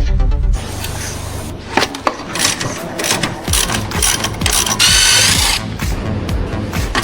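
Background music that stops about half a second in, then workshop tool sounds: clicks and knocks, with a power tool running briefly with a wavering whine about five seconds in.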